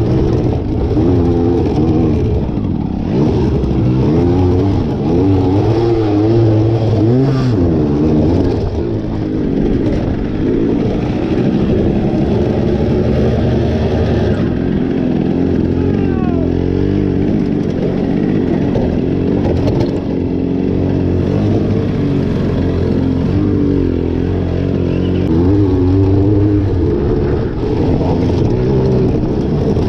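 Motorcycle engine running while the bike is ridden, its pitch rising and falling with the throttle.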